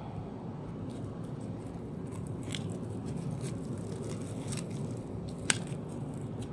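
Scattered clicks and light scraping from a utility knife being handled, with one sharp click about five and a half seconds in, over a steady low background rumble.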